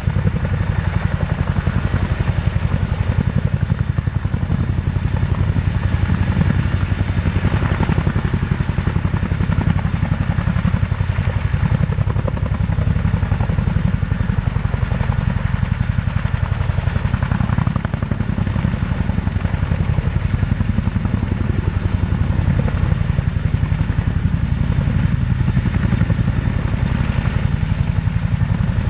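CH-47F Chinook tandem-rotor helicopter hovering low: the steady, rapid thudding chop of its two three-bladed rotors over the running of its twin turboshaft engines.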